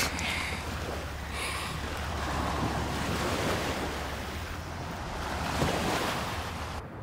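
Steady rushing noise that swells and eases, over a low rumble, cutting off suddenly near the end.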